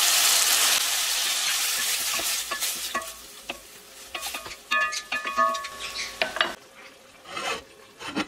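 Water sizzling loudly as it hits a hot aluminium pot of shrimp, tomatoes and spices, dying away over the first few seconds. Then a wooden spatula stirs the pot with scattered knocks and scrapes against the metal.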